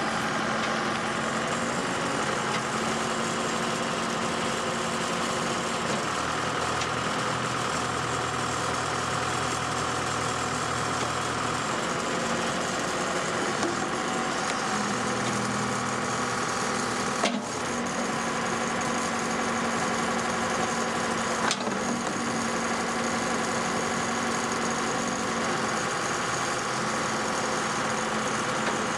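Diesel engine of a 1995 Case 580SL backhoe loader running steadily, its note shifting a few times. Two sharp clicks come a little past the middle, a few seconds apart.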